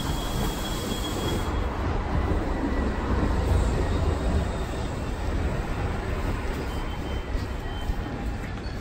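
A SkyTrain train running through the elevated station: a steady low rumble that swells about three to four seconds in and eases off near the end.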